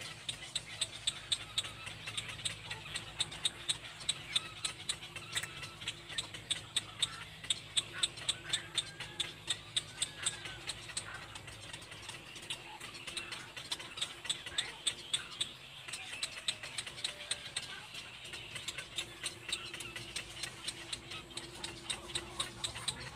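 Rapid, evenly paced ticking that keeps going throughout, with a few faint short chirps in the middle.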